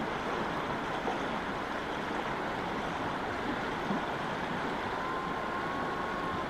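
Shallow river rushing steadily over rocks and boulders in a riffle.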